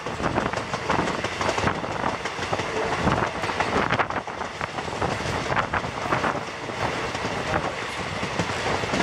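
A moving passenger train coach, heard from outside its window: steel wheels running on the rails with a steady rumble and frequent irregular clicks and clatter.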